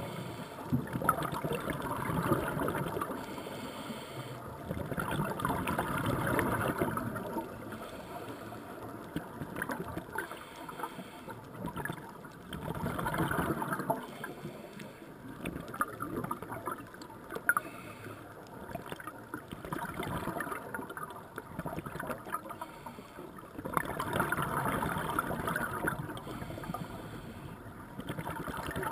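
Scuba diver's breathing heard underwater: exhaled bubbles from the regulator gurgle out in surges every few seconds, with quieter stretches between breaths.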